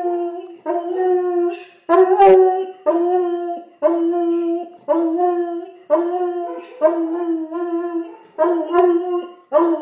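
Coonhound baying from a couch: a steady run of drawn-out howling calls, about one a second, each held on one pitch, the loudest about two seconds in.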